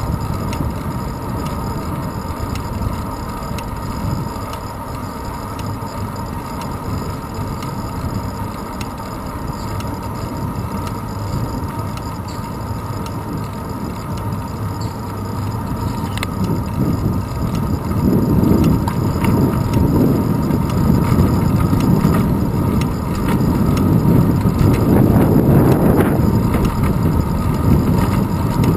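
Wind rushing over a handlebar-mounted action camera's microphone, with road rumble and vibration from a bicycle rolling on asphalt. It grows louder about two-thirds of the way through.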